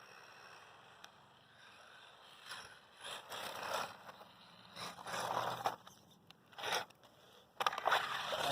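Small electric RC truck, a Losi Mini-T 2.0 on knobby tires, driving over dirt in short throttle bursts, its motor whirring and its tires scrabbling and scraping, the bursts growing louder toward the end.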